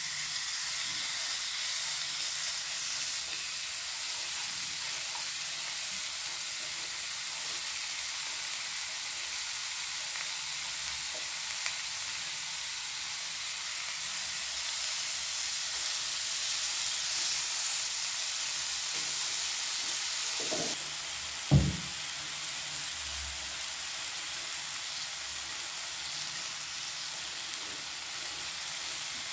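Marinated beef steak, sliced onions and bell peppers sizzling steadily on a hot Korean barbecue grill pan. A single sharp knock about two-thirds of the way through.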